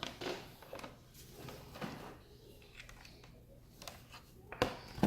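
Scattered light clicks and knocks from the laptop and its power adapter cable being handled as the charger is plugged in, with two sharper knocks near the end.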